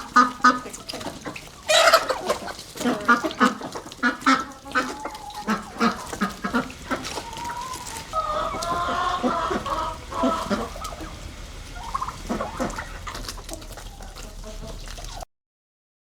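Chickens clucking in a run of short repeated calls, with a longer drawn-out call about eight seconds in.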